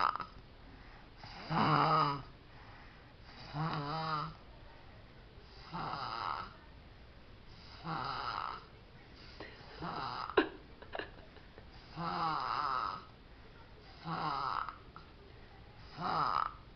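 A two-year-old toddler snoring in his sleep, one snore about every two seconds. A short sharp click sounds about ten seconds in.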